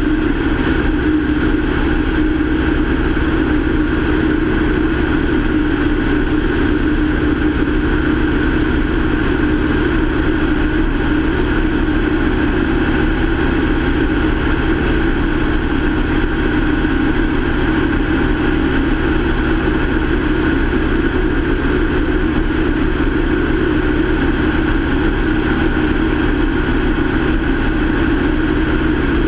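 Light aircraft's piston engine and propeller running steadily in cruise flight, heard from a camera mounted outside on the airframe.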